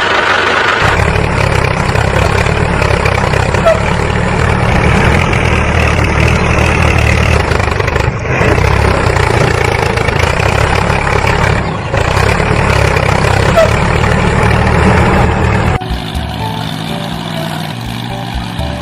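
An engine running steadily with a heavy low throb. It briefly dips twice and, about three quarters of the way through, changes abruptly to a quieter, thinner running.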